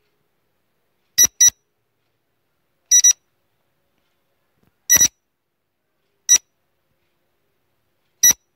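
Short electronic beeps from a quiz countdown-timer sound effect, about eight in all: three quick pairs, then two single beeps, with complete silence between them.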